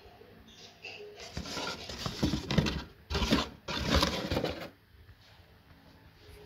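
Cardboard of a shipping box being handled: rustling, scraping bursts for about three seconds that stop a little past the middle.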